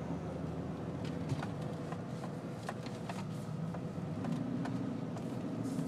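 Inside a moving car's cabin: steady engine and road hum, with scattered light clicks and rattles. The engine note strengthens a little about four seconds in.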